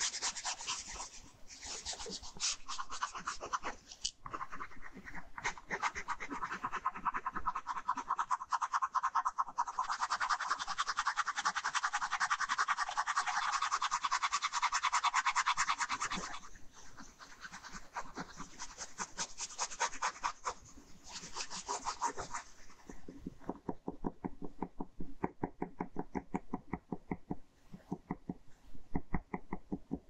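Ballpoint pen scratching on paper in rapid back-and-forth hatching strokes. About two-thirds of the way through, the strokes turn quieter, lower and more spaced out.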